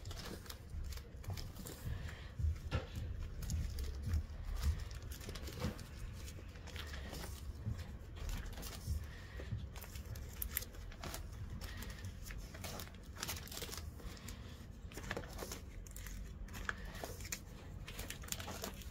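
Clear plastic binder sleeves crinkling and rustling as pages are turned and paper envelopes are slid in and out of the pockets, with irregular small clicks and crackles throughout, loudest in the first five seconds or so.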